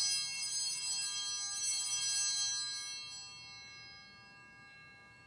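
Altar bells rung at the elevation of the consecrated host. A bright ring of many high tones dies away over about four seconds.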